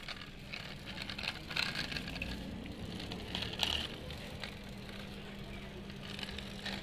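Die-cast model bus pushed by hand over rough concrete, its small wheels rolling with a gritty crackle that grows louder around the middle.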